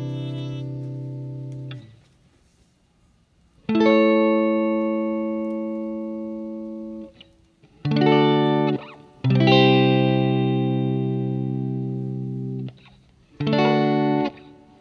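Background music: held electric guitar chords with effects and distortion, each ringing out and slowly fading, with short pauses between chords.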